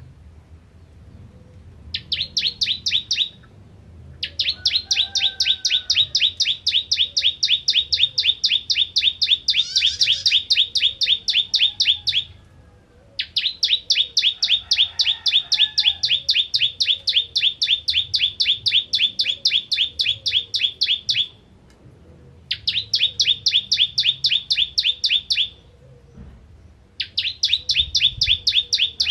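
Caged ciblek kristal, a bar-winged prinia, singing its rapid repeated-note song: even, high notes at about eight a second in runs of several seconds, broken by short pauses.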